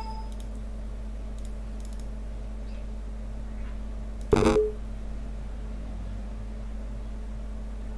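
Steady electrical hum and noise from a desktop recording microphone, with one short loud click a little over four seconds in.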